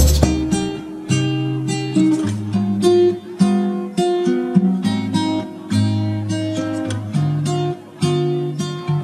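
Background music: a guitar strumming and picking chords.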